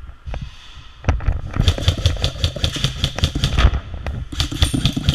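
Airsoft electric rifle firing on full auto in two long bursts of rapid shots, the second starting near the end.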